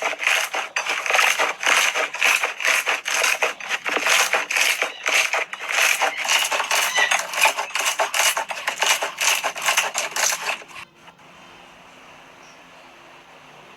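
Slime being squeezed and pressed by hand, giving a rapid, dense stream of crackling and popping clicks that stops about eleven seconds in, leaving only a faint steady hum.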